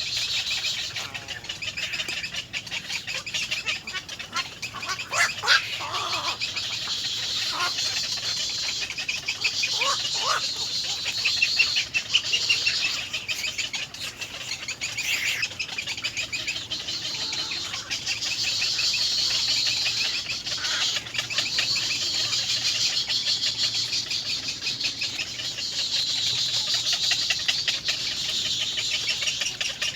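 Baby birds in the nest keep up a fast, rasping begging chatter while being fed. A few short, lower sliding calls come in about five and ten seconds in.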